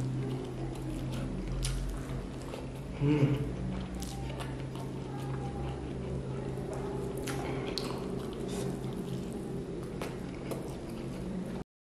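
Close-up mukbang eating sounds: wet chewing, lip smacks and squishy mouth noises as rice and chicken are eaten by hand, over a steady low hum. A short hum from the eater about three seconds in, and the sound cuts out briefly near the end.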